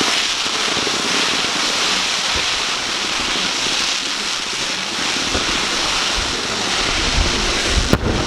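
Fireworks giving off a dense, steady hissing crackle, like a shower of sparks, with a sharp bang near the end.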